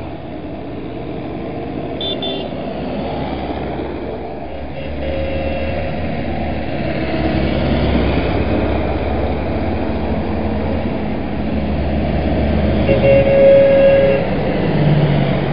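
Tractor diesel engines running as tractors drive past in a line, getting louder as one approaches. A horn sounds for about a second near the end.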